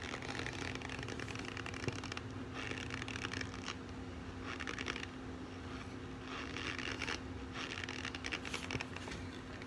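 Dry cornstarch crunching as it is squeezed and packed in bare hands, in repeated spells of about a second each, over a low steady hum.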